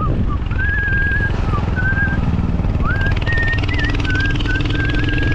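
Vehicle engine and road rumble while driving, with a tune whistled over it in short gliding phrases and one longer held note near the end.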